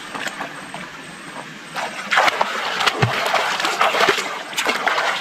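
Water splashing as a person swims and kicks through shallow muddy water. The splashing turns loud and busy about two seconds in, with many quick slaps and sprays.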